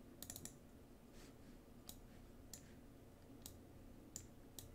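Faint computer mouse clicks: a quick run of three or four just after the start, then single clicks every half second to a second.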